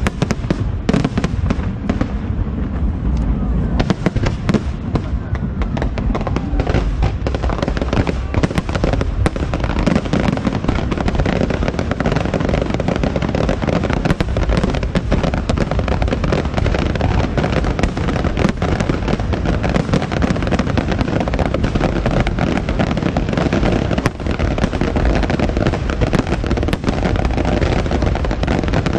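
Aerial fireworks going off in a rapid, unbroken barrage of bangs and crackles, growing denser after the first few seconds.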